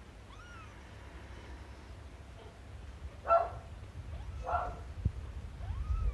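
Kittens about three weeks old mewing: faint, high, arching calls at first, then two louder mews about three and four and a half seconds in, and another near the end.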